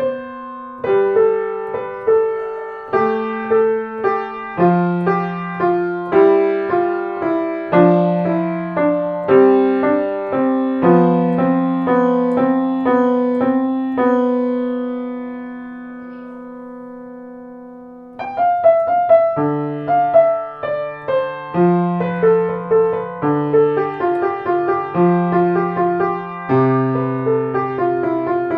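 Solo piano music played on a Blüthner grand piano. The notes are struck and left to ring, and near the middle a held chord fades away before a new, livelier phrase begins.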